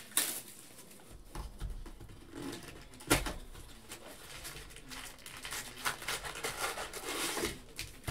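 Hands unwrapping and opening a 2020 Panini Prizm No Huddle football card box, with a sharp snap about three seconds in. Then foil card packs rustle as they are pulled out and stacked.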